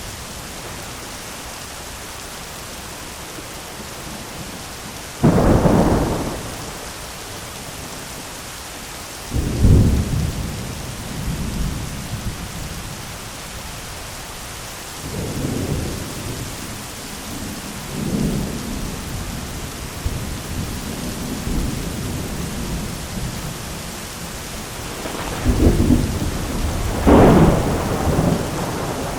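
Heavy rain falling steadily on an umbrella, with thunder. A sudden loud clap comes about five seconds in, several rumbles follow through the middle, and two more loud peals come near the end.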